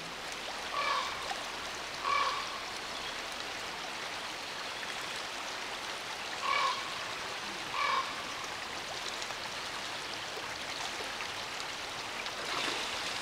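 Forest ambience: a steady rush of running water, with four short, pitched animal calls, two in the first couple of seconds and two more about six to eight seconds in.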